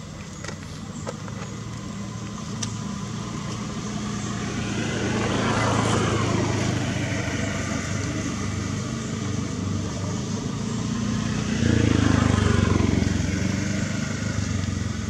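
Motor vehicles passing by twice, the engine noise swelling and then fading, loudest about six seconds in and again about twelve seconds in.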